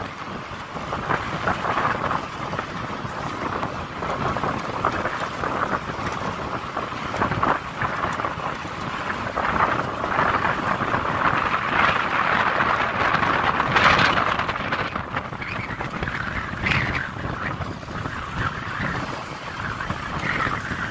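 Ride noise from a moving motorbike: a continuous rushing of wind buffeting the microphone and tyre and road noise over the engine running, rising and falling, loudest about fourteen seconds in.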